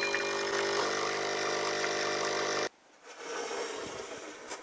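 Capsule espresso machine's pump running with a steady hum while the espresso pours, then cutting off suddenly a little over halfway through as the brew ends.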